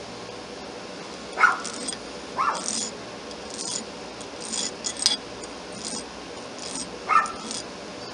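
Short rasping strokes of a small brass pin being abraded by hand to take out vise-grip marks, about one stroke a second. Three short, louder sounds stand out: about one and a half and two and a half seconds in, and again near the end.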